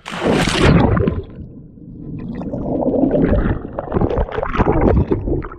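A person plunging into the sea with a loud splash, then water churning and gurgling around the action camera as he surfaces and splashes beside the boat.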